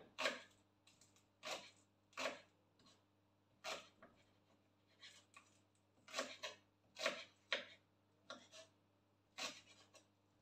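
Kitchen knife slicing green onions on a wooden cutting board: crisp, irregular cuts, roughly two a second, each a short sharp stroke.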